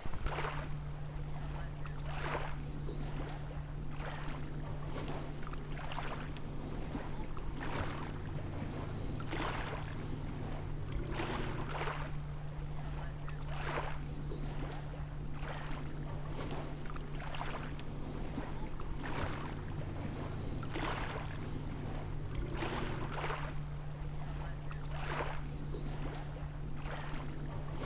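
A steady low hum that shifts in pitch briefly twice, with frequent soft knocks and clicks about a second apart.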